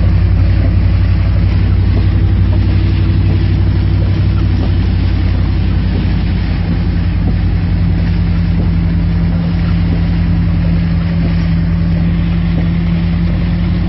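A 1989 Chevy C10 pickup's engine runs steadily with a low drone, heard from inside the cab. Its pitch shifts a little about halfway through.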